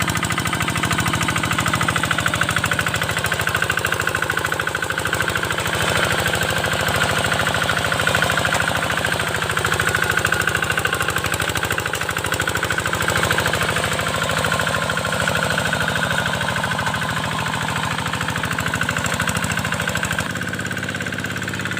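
Hand tractor's single-cylinder Kubota diesel engine running with a fast, steady chugging while pulling a plough through the wet field. About twenty seconds in its note drops to a lighter, quieter run.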